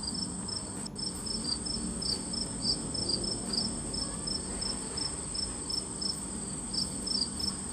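Crickets chirping, played back as a recorded animal sound effect: a steady high trill with short chirps repeating over it.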